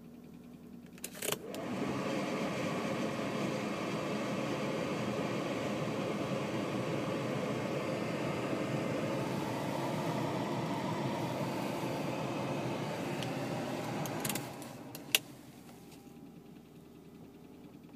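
BMW E36 328i's straight-six engine idling steadily, heard up close for about thirteen seconds. A sharp click comes just before it and a sharp knock just after it.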